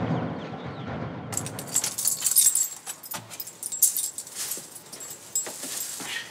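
A bunch of keys jangling and clicking as a door lock is worked, starting suddenly about a second in and going on in quick irregular jingles.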